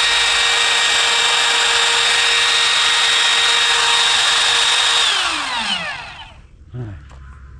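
Hercules router running at full speed with a steady high whine while making a hinge-mortise pass in a wooden door, then switched off about five seconds in, its pitch falling as the motor winds down.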